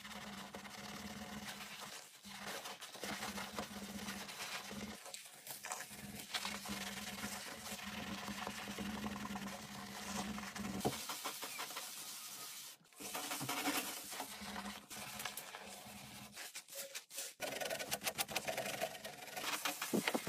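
A wet sponge scrubbing a soapy ceramic bathroom basin in quick rubbing strokes. Under it is a steady low hum that stops about halfway through and returns near the end.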